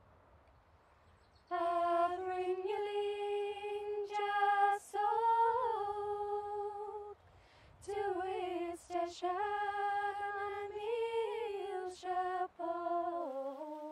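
Unaccompanied female voice singing a slow sean-nós air, with long held notes and ornamented turns. It starts about a second and a half in and stops for a breath about halfway.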